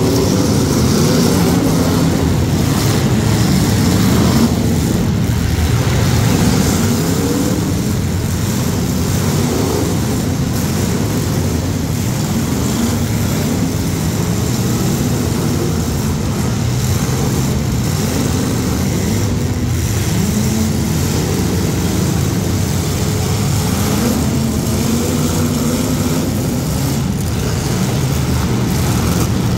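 Several demolition derby cars' engines running hard together, their pitch repeatedly rising and falling as the drivers rev up and back off between hits.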